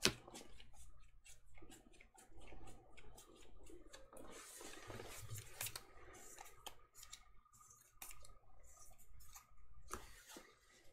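Sleeved trading cards being handled: a faint, irregular run of crisp clicks and light rustles.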